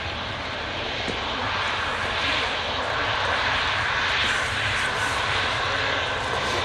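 Jet engines of an Airbus A330 airliner running at high power as it rolls down the runway: a steady broad rush that grows a little louder about halfway through.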